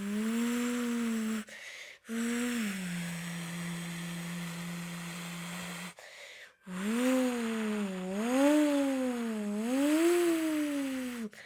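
A person imitating a Ferrari Testarossa's engine with their voice. The hummed note is held steady like an idle and breaks twice for breath, then swings up and down three times like revving.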